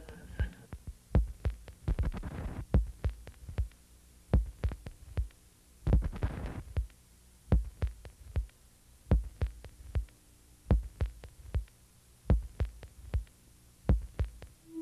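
Low, sharp thumps, often doubled, repeating slowly every second and a half or so in a heartbeat-like rhythm. Two short hissing swells come about 2 and 6 seconds in.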